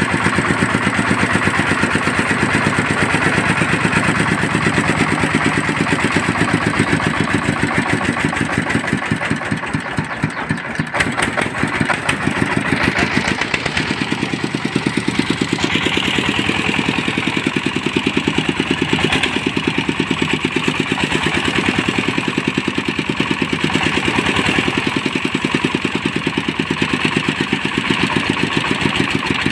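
Small single-cylinder engine of a homemade mobile rice-huller vehicle running under way, with a fast, even chugging. It dips briefly about ten seconds in, and its sound turns brighter from about halfway through.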